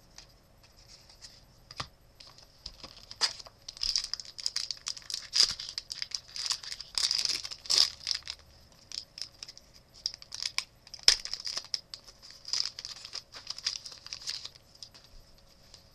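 Foil wrapper of a trading card pack crinkling and tearing as it is handled and ripped open, in irregular bursts of crackling from about three seconds in until shortly before the end.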